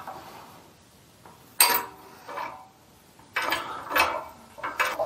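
A few metallic clanks and clinks with short ringing, spaced about a second apart, as a mini lathe headstock is set on steel support blocks under a shop press.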